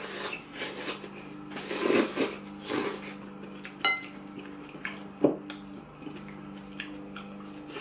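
Eating with chopsticks from a ceramic plate: a few short slurps of hot pot food, a ringing clink of chopsticks on the plate about four seconds in, and another sharp click a second later. Underneath is a steady low engine hum from a neighbour's lawn mower.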